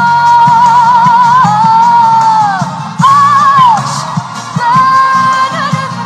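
Background song: a singer holds long, wavering notes that slide down at their ends, over a steady low beat.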